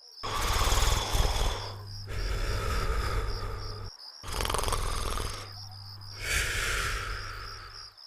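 Cartoon snoring sound effect: two long snores, each a rasping breath in followed by a lower breath out, the second breath out ending in a falling whistle.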